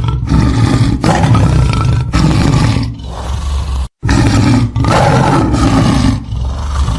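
Tiger roaring: a run of deep, rough roars, broken by a short silence about four seconds in before the roaring starts again.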